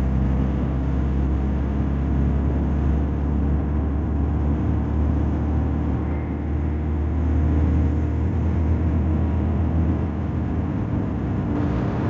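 A vehicle's engine running steadily with road noise, heard from the moving vehicle as a continuous low drone.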